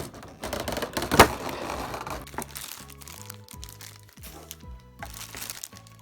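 Plastic packaging crinkling and crackling as model-kit parts are taken out, with two sharp cracks at the start and about a second in, over background music with steady notes.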